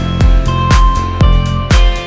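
Background music with a steady electronic beat, a kick drum about twice a second under held synth notes.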